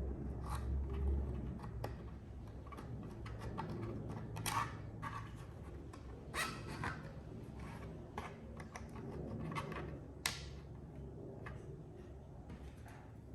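Hands handling and fitting 3D-printed plastic parts: scattered clicks and a few brief scrapes over a low, steady hum.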